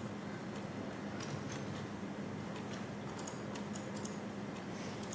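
Faint, irregular clicks of laptop keys being typed, over a steady low hum.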